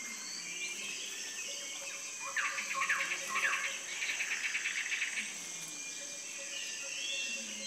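Tropical rainforest ambience: a steady high-pitched insect drone, with a quick series of bird calls about two to three seconds in and a rapid pulsed trill around four to five seconds.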